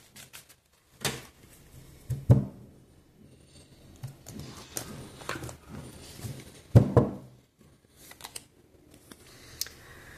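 A deck of oracle cards shuffled by hand: a run of papery flicks, clicks and rustles, with two heavier knocks about two seconds in and again near seven seconds.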